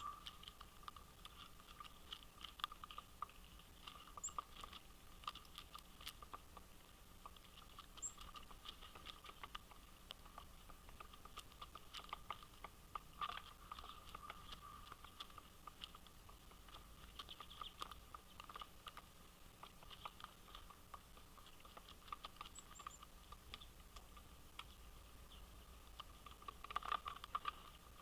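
Faint, irregular tapping and clicking of birds pecking and picking at seed on a feeder, with a few brief high chirps. A short flurry of louder taps comes near the end.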